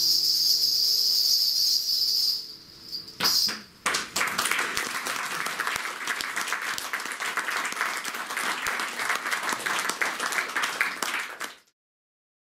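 The last classical guitar note dies away under a high steady shimmer, then an audience applauds for about seven seconds, cut off abruptly near the end.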